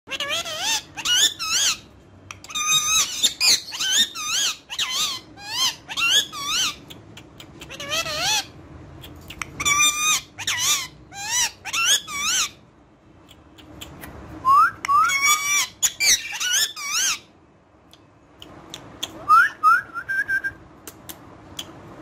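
Indian ringneck parakeet chattering: clusters of short, high, warbling calls in quick succession, with brief pauses about 13 and 18 seconds in.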